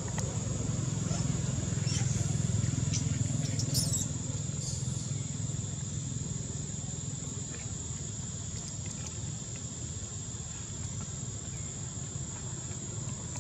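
Outdoor ambience: a steady high-pitched insect drone over a low rumble, a little louder in the first few seconds, with a few faint clicks and a brief high chirp about four seconds in.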